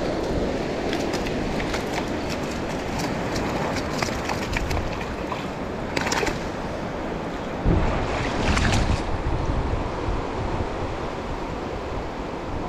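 Small waves washing up the sand and wind on the microphone, with sharp splashes as a hooked halibut is dragged through the shallow wash about six seconds in. A burst of low buffeting on the microphone follows shortly after.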